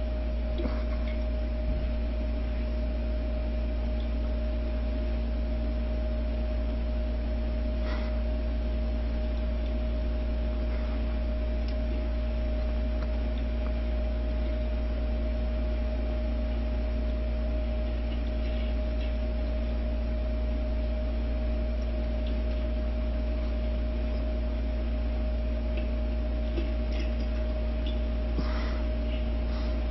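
A steady, even hum with a deep low drone and two constant tones. A few faint, brief sounds break in about 8 seconds in and again near the end.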